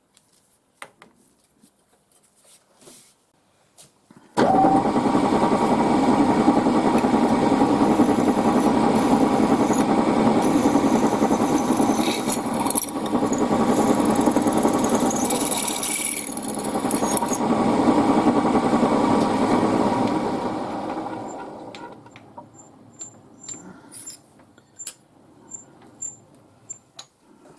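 Drilling machine starting up about four seconds in and running steadily as a twist drill bores a hole through steel square tube. The motor is switched off about twenty-one seconds in and spins down, followed by a few light metallic clicks.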